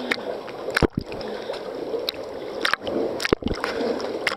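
Seawater sloshing and gurgling right at a camera held at the surface by a swimmer, with a few sharp close splashes about a second in and again near three seconds.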